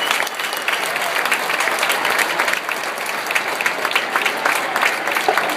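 Large crowd applauding in a stadium: a dense wash of many hands clapping, easing slightly about halfway through.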